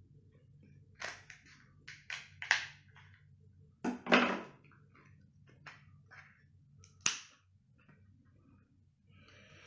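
Cooked king crab leg shell being cracked and snapped apart by hand: a string of short, sharp irregular cracks, the loudest about four seconds in.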